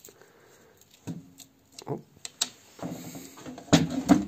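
Small metal clicks and clinks of engine parts being handled and fitted by hand on a motorcycle engine's gearbox, with a sharper knock about three and a half seconds in.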